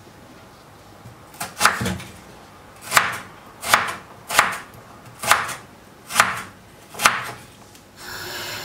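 Crinkle-cut knife chopping peeled raw potatoes on a wooden cutting board: about eight sharp chops at an uneven pace, starting a little over a second in.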